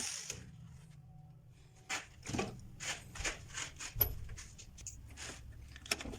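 Electrical contactor humming steadily, with irregular clicks and rattles over it.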